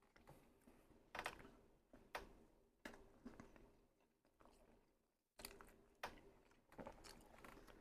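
A man chewing and biting food close to the microphone: faint mouth sounds with about six short, sharp smacks or crunches spread out, each fading quickly.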